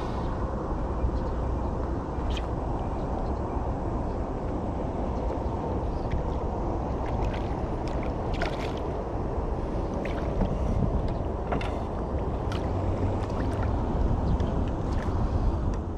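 Steady wind rumbling on the microphone over rippling open water, with scattered faint ticks.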